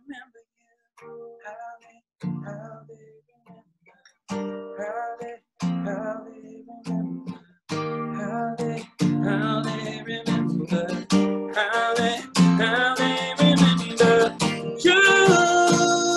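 Acoustic guitar being strummed, closing out a country song. It starts with separate chords and silent gaps between them, then from about nine seconds in becomes fuller, steady strumming that grows louder.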